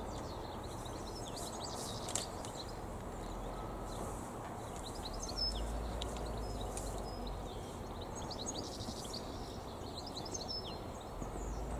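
Small birds chirping and singing in the surrounding trees, many short high notes through the whole stretch, over a steady background hiss, with a low rumble coming up about halfway through and again near the end.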